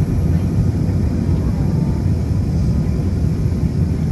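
Steady low rumble of engine and airflow noise heard inside the passenger cabin of an Airbus A380 in flight.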